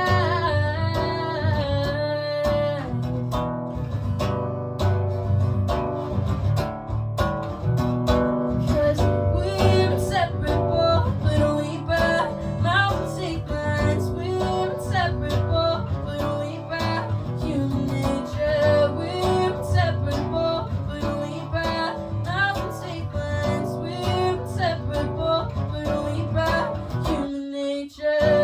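Music: an instrumental passage of an acoustic-guitar-led song, the guitar strummed over a steady low end, with a brief drop-out near the end.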